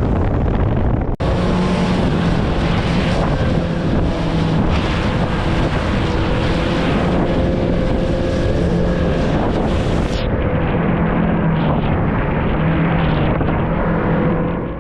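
Strong wind buffeting the microphone on a small open boat, over a steady low drone from its outboard motor running. The sound changes abruptly about a second in and again near ten seconds.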